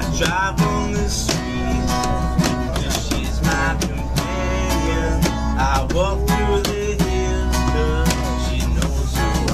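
Acoustic guitar strummed steadily while a man sings over it, above the train's steady low rumble.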